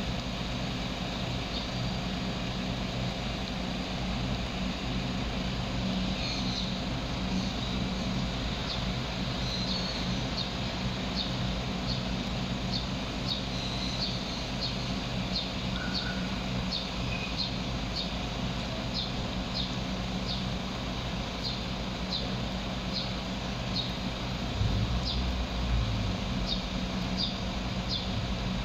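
Steady low hum of an idling vehicle engine, with a short high chirp repeating about every two-thirds of a second from about nine seconds in, and a brief low rumble near the end.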